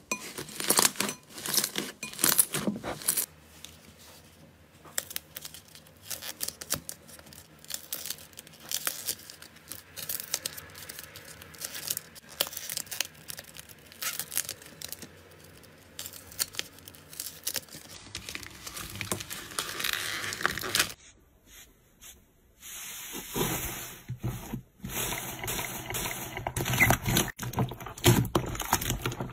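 Hands squeezing, poking and stretching slime: sticky crackles, pops and crunchy clicks in quick runs, sparser and quieter through the middle.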